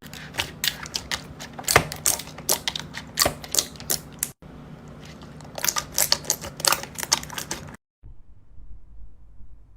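Slime being squeezed and poked by hand, making rapid sticky clicks and pops. The clicking breaks off briefly about four and a half seconds in and stops about eight seconds in, after which only a faint low rumble remains.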